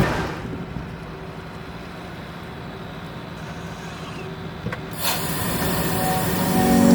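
Range Rover Sport P510e's 3.0-litre inline-six petrol engine dropping back from a rev to a steady idle hum. From about five seconds in it starts to climb again.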